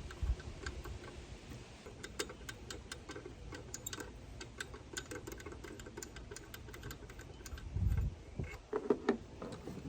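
Ratchet wrench clicking in runs as a bolt is backed out, with a low thump about eight seconds in.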